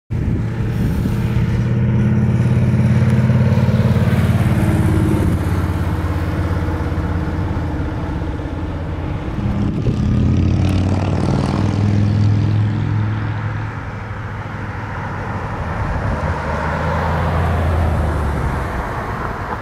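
A vehicle engine running steadily with a low hum, which shifts slightly in pitch about ten seconds in.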